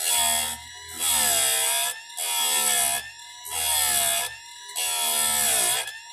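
Chicago Electric electric chainsaw chain sharpener grinding a chain tooth in about five repeated strokes, each about a second long, with a harsh grinding hiss. The motor's pitch dips under load during each stroke and recovers in the short gaps between.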